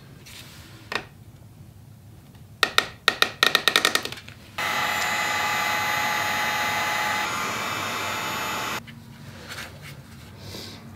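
Electric heat gun switched on about halfway through, running with a steady hiss and a high whine for about four seconds, then switched off. A quick run of sharp clicks comes just before it starts.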